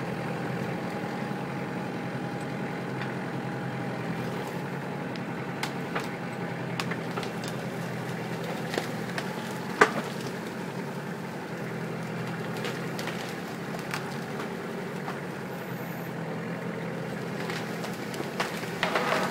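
Kubota tractor's diesel engine running steadily while its front loader pushes against a big spruce, with scattered sharp cracks of wood giving way: one loud crack about halfway through and a quick flurry of cracks near the end.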